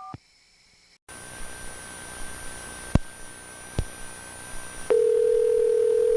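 Telephone line audio. A faint hiss with two sharp clicks gives way, about five seconds in, to a loud, steady telephone tone like a dial tone.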